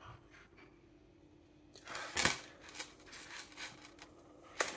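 A thin metal chain handled between ringed fingers: a few light clicks and rubbing noises, starting about two seconds in.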